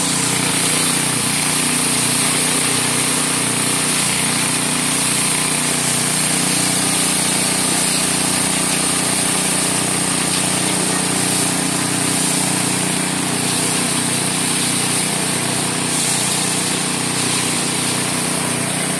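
A motor-driven machine running steadily, with a regular low pulse about twice a second.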